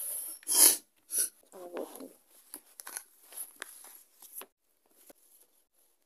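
Handling noise: rustling and a string of clicks and knocks as the phone is moved about, loudest in a short burst about half a second in. There is a brief faint murmur of a voice around the second second.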